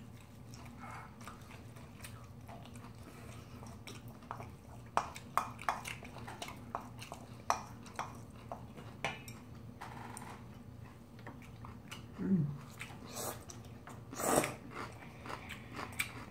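Bibimbap being eaten: chewing, with spoons clicking and scraping against a stainless-steel mixing bowl and a ceramic bowl, as a run of short, sharp clicks from a few seconds in.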